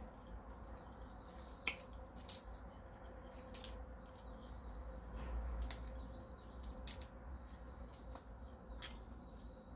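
Shell of a large cooked prawn being peeled by hand: scattered small cracks and clicks, one every second or so, a little louder twice.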